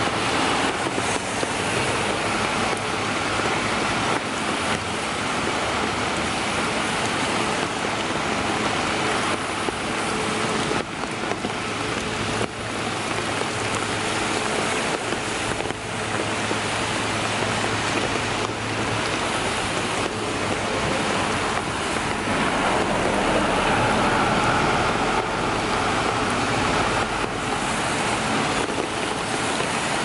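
Tyres hissing on a wet road as traffic passes, over steady rainfall. The traffic noise swells louder a little past two-thirds of the way through.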